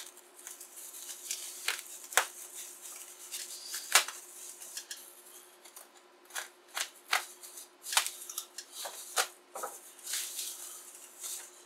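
Bubble wrap being slit with a utility knife and pulled open: scattered sharp crinkles and crackles of the plastic, the loudest about two and four seconds in.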